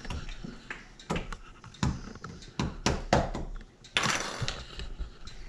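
Hard plastic toy kitchen pieces knocking and clicking as they are handled, several separate knocks, with a short burst of noise about four seconds in.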